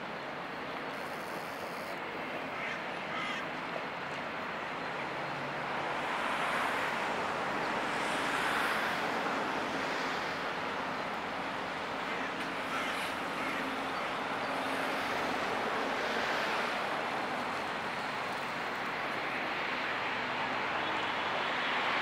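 Inland cargo ship passing close by: the low drone of its twin MTU diesel engines under a steady rush of water that swells and ebbs every few seconds. A crow caws a few times.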